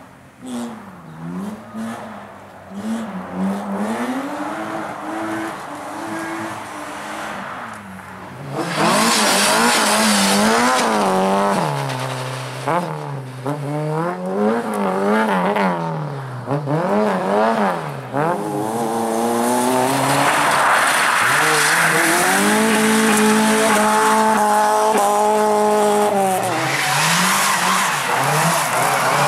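Rally cars driven hard one after another on gravel: engines revving, their pitch rising and falling again and again with gear changes and corners, over the hiss of tyres on loose gravel. Much louder from about nine seconds in.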